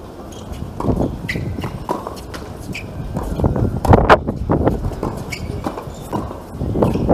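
Tennis rally on a hard court: rackets striking the ball and the ball bouncing, a string of sharp pops with the loudest about four seconds in, among the players' footsteps.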